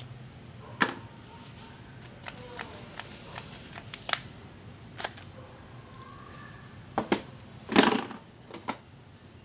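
Scattered clicks and knocks of hard plastic as a cordless combo power tool's body and its moulded carrying case are handled, with a louder clatter about eight seconds in.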